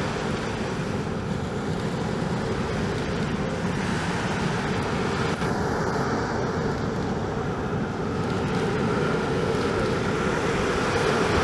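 Jet engines of a Boeing 787-8 Dreamliner on final approach make a steady rumble that grows slowly louder as the aircraft nears. An engine whine comes in about two-thirds of the way through.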